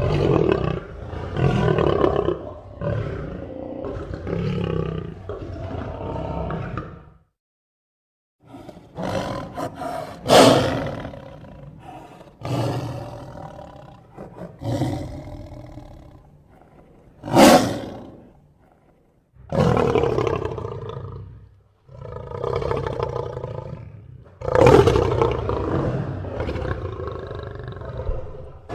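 A string of separate roar sound effects, big-cat-like roars and growls, one after another, with two brief silent breaks between clips.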